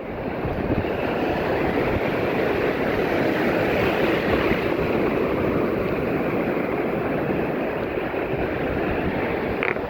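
Sea waves and wind: a steady rushing noise that swells over the first second and then holds level.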